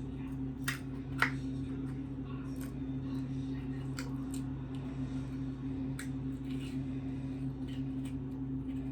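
Small containers of acrylic nail powder being handled, with scattered light clicks and taps; the sharpest comes about a second in. A steady low hum runs underneath.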